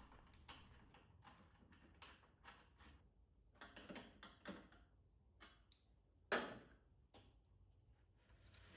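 Near silence with faint, scattered light clicks and taps of small parts being handled, one sharper tap about six seconds in.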